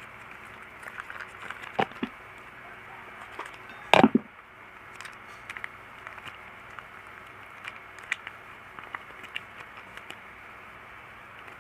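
Light clicks and knocks of kitchen utensils and containers being handled during food preparation, with a sharp knock about two seconds in and a louder one about four seconds in, over a steady hiss.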